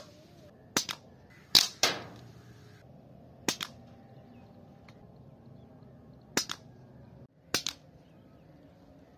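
Air rifle firing 18-grain diabolo pellets at a paper target in an accuracy test. Five separate shots, unevenly spaced, each a sharp crack with a quick second click right behind it.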